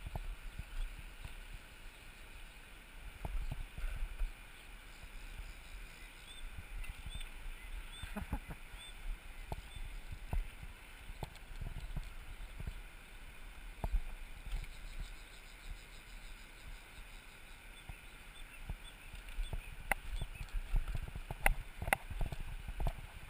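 Riverside ambience through a body-worn camera: wind noise rumbling on the microphone, with scattered clicks and crunches of footsteps on river gravel that come more often near the end. A few faint high bird chirps come in a few seconds in.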